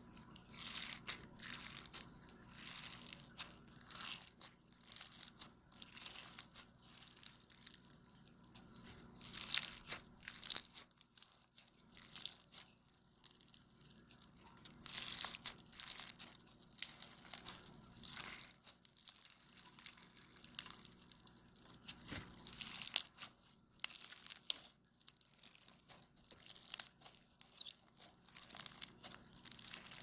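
Blue bead-filled slime being squeezed, pressed and stretched by hand, giving a dense, irregular crunchy crackling as the beads pop and rub against each other.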